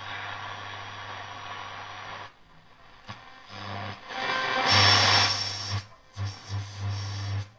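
Telefunken Operette 8 valve radio's loudspeaker giving static hiss over a steady mains hum as it is tuned across the medium-wave band. About halfway through, louder bursts of a weak, unidentifiable station come and go.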